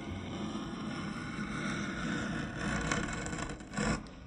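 Carving chisel pushed by hand through lime wood (basswood), paring off chips with a scraping sound. The strokes grow louder, with the strongest cut just before the end.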